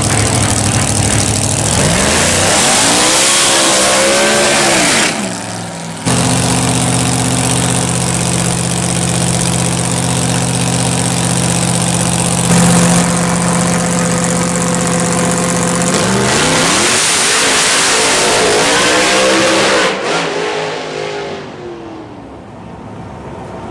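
Pro Nitrous drag racing truck's engine at the starting line: a steady loud run broken by revs that rise and fall. Near the end it pulls away down the strip and fades.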